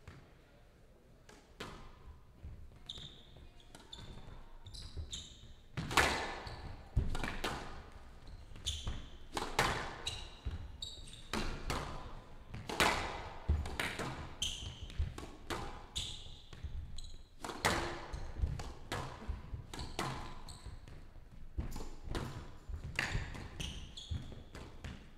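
Squash rally on a glass court: sharp smacks of the racquet hitting the ball and the ball hitting the walls, about one a second and louder from about six seconds in, with short squeaks of court shoes on the floor between them.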